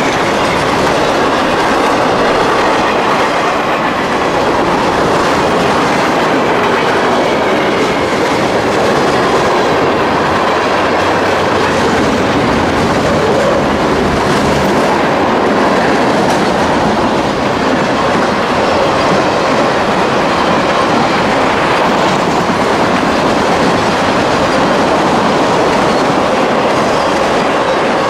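Freight cars of a CSX mixed freight train, including flatcars loaded with big pipes, rolling past at speed: a steady, loud rumble and clatter of steel wheels on the rails.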